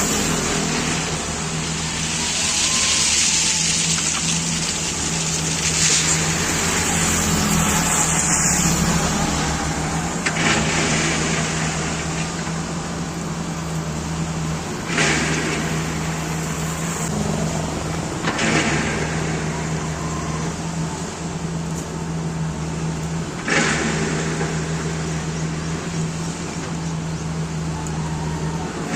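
Volvo backhoe loader's diesel engine running at a steady pitch, with a sudden rushing noise about every four or five seconds, five times in all.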